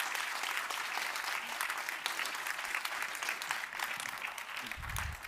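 Audience applauding, a dense patter of clapping that slowly thins out toward the end, with a couple of low thumps near the end.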